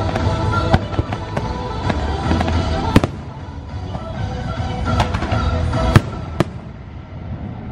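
Fireworks going off in a rapid series of sharp bangs and cracks, loudest about three seconds and six seconds in, over the show's music.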